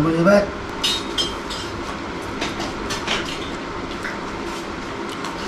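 Eating sounds at a meal: scattered wet clicks and smacks of chewing chicken feet and of fingers working food on plates, over steady background noise.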